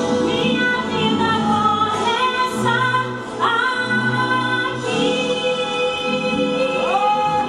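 Music with a woman singing long held notes, sliding up into some of them, over an accompaniment.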